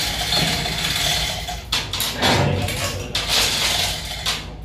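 Metal clanking and rattling of hoist chains and a heavy marine diesel engine being eased through a tight opening cut in a steel hull, with a run of sharp metallic knocks in the middle.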